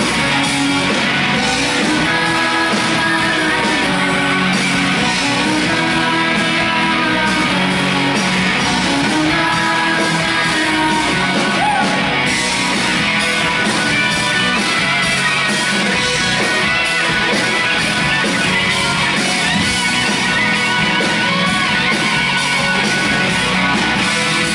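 Live rock band playing: electric guitars, bass, drums and keyboard, with singing over them, loud and continuous.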